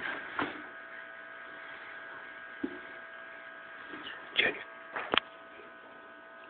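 Steady electrical mains hum of several held tones, with a few scattered knocks and clicks, the loudest about four and a half and five seconds in.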